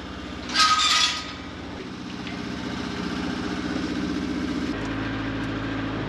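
A vehicle engine running steadily, its note shifting lower near the end. About half a second in, a brief louder clinking sound rises over it.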